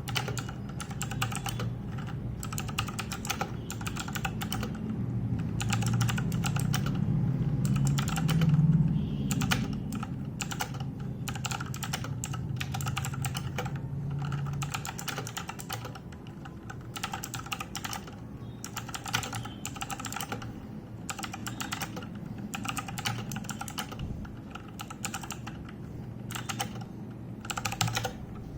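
Typing on a Cosmic Byte CB-GK-16 Firefly mechanical keyboard with clicky Otemu Blue switches: quick, irregular runs of keystroke clicks with short pauses between them. A low steady hum sits underneath for the first half and fades out about halfway through.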